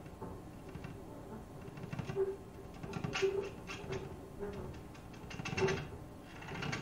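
Sparse improvised playing on upright bass and electric guitar: a quiet, wavering held tone that comes and goes, with scattered scrapes and clicks.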